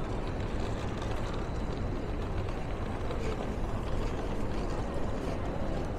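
Steady outdoor city-street ambience: an even low rumble and hiss, with no single sound standing out.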